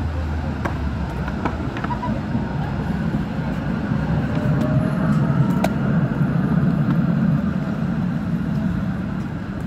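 City tram passing, a low rumble that grows louder to a peak about halfway through and then eases off.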